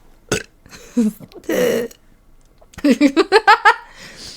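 A woman burps once, a short belch about a second and a half in, brought up by the fizz of the sparkling water she has been drinking. Near three seconds in she giggles in a quick run of short bursts that rise in pitch.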